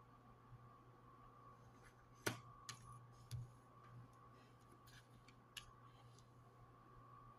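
Near silence with a few light clicks and taps of playing cards being handled and set down on a table, the sharpest a little over two seconds in, over a faint steady hum.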